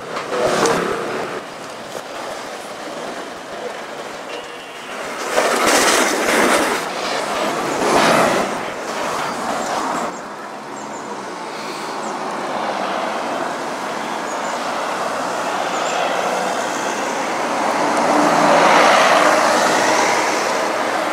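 Street traffic noise: vehicles passing on the road, with louder swells about 6 and 8 seconds in and a longer one building near the end.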